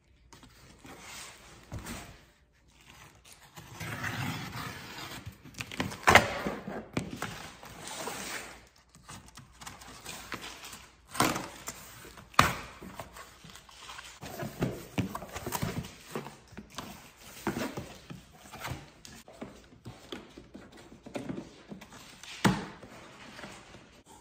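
Cardboard boxes being opened by hand: tape pulled off, flaps scraped and folded back, and the cardboard rustling. Scattered knocks and thunks come as the boxes are handled, the sharpest about six seconds in, with others around eleven to twelve seconds and near the end.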